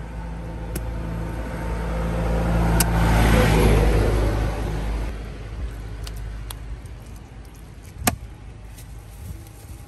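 A motor vehicle passing close by, its engine hum and tyre noise swelling to loudest about three and a half seconds in and fading away over the next few seconds. A few sharp knocks of a knife on a wooden chopping block, the loudest about eight seconds in.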